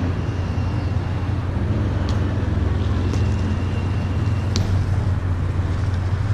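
Steady low rumble of city traffic, with a few sharp clicks about two, three and four and a half seconds in.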